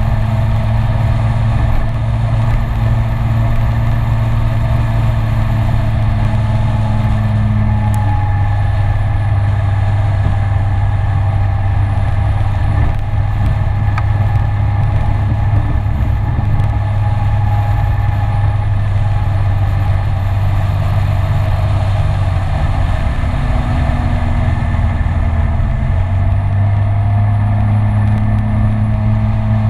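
Kymco Citycom 300i scooter's single-cylinder engine running steadily at cruising speed, over a steady rush of wind and road noise. Its note drops and shifts for a few seconds about three quarters of the way through, then steadies again.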